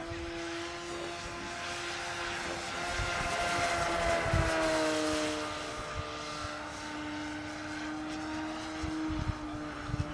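Electric motor and propeller of an MXS aerobatic radio-controlled model airplane whining in flight at a steady pitch. It grows louder about three to five seconds in as the pitch dips slightly, then eases back.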